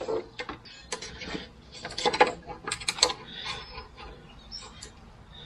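Irregular small metallic clicks and rattles as wire terminals are screwed onto the posts of a toggle switch by hand.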